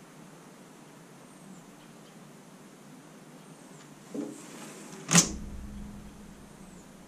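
A dull knock, then about a second later a sharp bang that dies away in a short low rumble, over a steady faint hiss.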